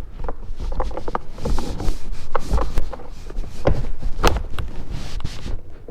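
Irregular plastic clicks, knocks and rubbing as the wiring plugs are unclipped and the loose plastic interior door card of an Infiniti Q50 is handled and lifted away from the door.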